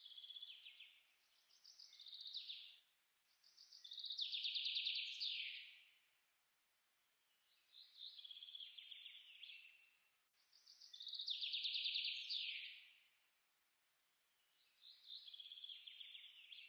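A songbird singing six short phrases of rapid trilled notes, each a second or two long and a few seconds apart, some ending in a quick downward sweep; the third and fifth phrases are the loudest.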